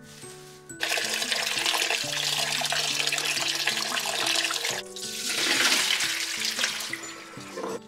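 Kitchen tap water running into a stainless steel bowl while cubed radish is rinsed by hand, starting about a second in. After a short break, the radish and water are tipped out of the bowl into a mesh strainer in the sink.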